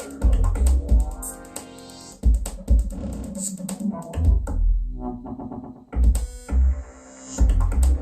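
Electronic music with synthesizer and drum-machine beats and heavy bass hits, with a short break about five seconds in.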